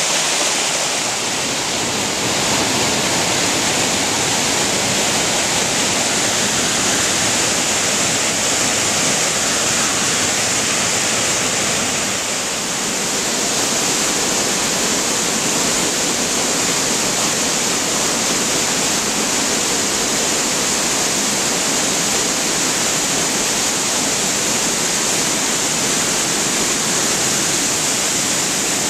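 Waterfall's steady, loud rush of falling water.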